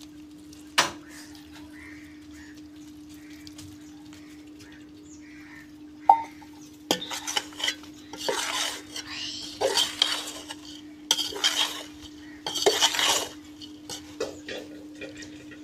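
A perforated metal skimmer stirring and scraping through dry fried crumbles in an aluminium pot. The crumbles are being mixed with freshly poured sugar syrup. The strokes come in repeated rough bursts from about seven seconds in; before that it is mostly quiet, with a steady low hum and a single clink of metal a little under a second in.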